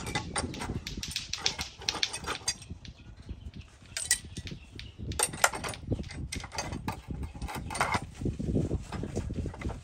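Irregular metallic clinks and knocks as a rusty steel car steering rod is handled and clamped in the steel vise of an abrasive chop saw that is not running.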